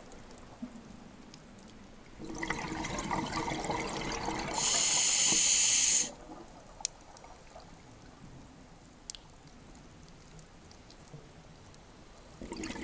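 A scuba diver breathing through a regulator underwater: a gurgling rush of exhaled bubbles about two seconds in, then a sharp hiss of an inhaled breath, then quiet with a couple of faint clicks, and bubbles again near the end.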